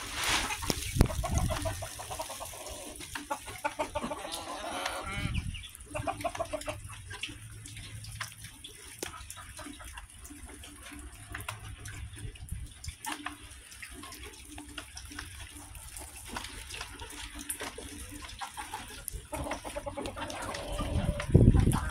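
Backyard hens clucking, a few short calls at a time, while they peck oatmeal from a bowl with many small beak taps. A louder low thump comes near the end.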